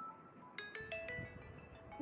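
Infinix Note 30 Pro ringtone playing: a short melody of bright, chime-like notes, with a cluster struck about half a second in that rings on as held tones.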